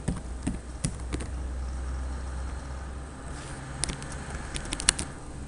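Computer keyboard keystrokes: a few separate clicks, then a quick cluster near the end, over a low steady hum.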